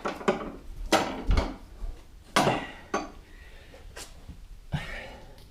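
Factory scissor jack being cranked up under the car: irregular metallic clinks and clanks, about half a dozen in a few seconds, the loudest about two and a half seconds in.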